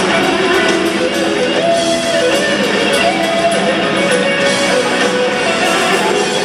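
Live southern rock band playing, with electric guitars, bass guitar, drums and keyboards together and a guitar line on top.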